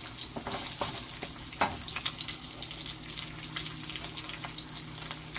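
Egg frying in bacon grease in a wok, sizzling with many small crackles, while a wooden spatula stirs and pushes it around the pan.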